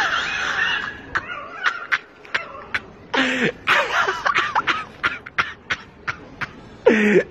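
Domestic cats yowling at each other in a standoff, the yowl fading about a second in. This is followed by a person's short snickering laughs and sharp breathy sounds.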